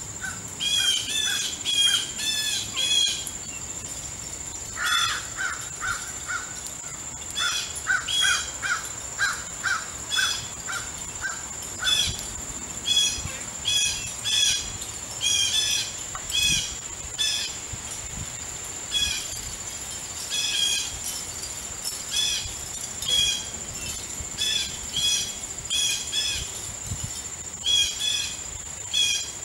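Crows cawing, short harsh calls given in quick runs of several at a time with brief pauses, over a steady high-pitched drone.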